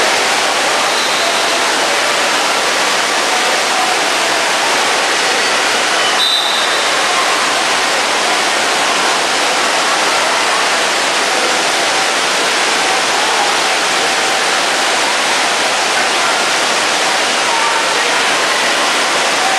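Steady rush and splash of pool water and water features in an echoing indoor water park, with the chatter of many voices underneath. A short high tone sounds about six seconds in.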